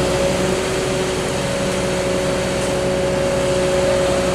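Fire engine running steadily at the scene, a low drone with a steady whine over it.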